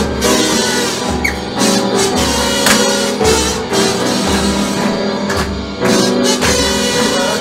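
Live band playing an instrumental passage on upright piano and drum kit, with a low beat about once a second and cymbal and drum strikes over held notes.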